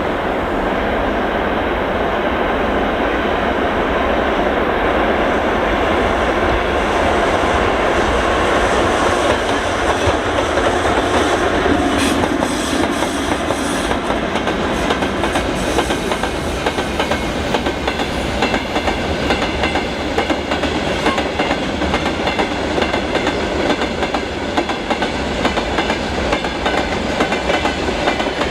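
Loaded freight train wagons rolling past at speed, their wheels clattering steadily over the rail joints. The clatter grows sharper and more rhythmic from about ten seconds in, with a brief metallic clank around the middle.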